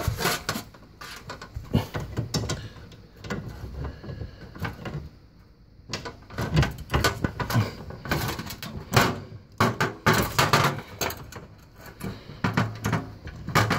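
Irregular metal clicks and knocks of hand-tool work: an adjustable wrench fitted to and worked on the brass compression nut of a dishwasher's copper water supply line, with tools knocking in the metal paint tray below. There is a quieter pause about four seconds in, then the knocking resumes.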